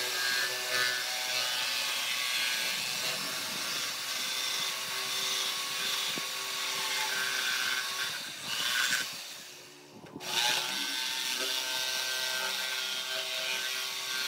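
Makita corded jigsaw running with its motor whine and cutting a curve through a thin pine board. It stops briefly about ten seconds in, then starts again and carries on cutting.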